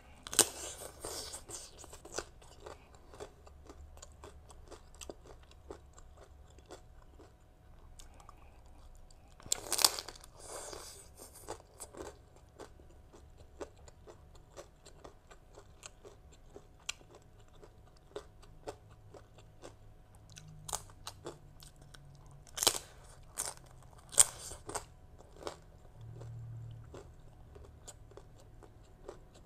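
Close-up crunching and chewing of a crisp toasted sesame rice cracker (bánh đa) topped with green mango and shrimp salad: a run of small sharp cracks, with louder crunching bites about ten seconds in and twice more after twenty seconds.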